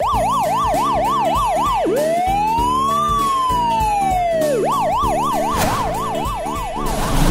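Cartoon police-car siren sound effect: a fast warbling yelp, then one slow rise and fall, then the fast warble again. Background music with a steady beat plays underneath.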